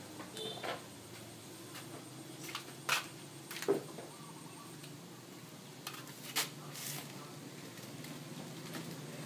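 Street-food stall background din, steady and low, broken by a handful of sharp knocks and clicks, the loudest about three, four and six and a half seconds in.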